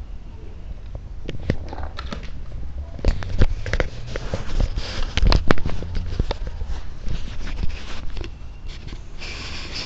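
Close, irregular knocks, clicks and scratchy rustling from a handheld camera being jostled and brushed against things, busiest in the middle, with a short hissing rustle near the end.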